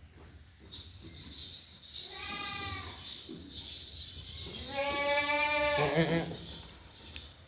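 Goat bleating twice: a shorter, higher call, then a longer, louder one that ends in a quavering waver.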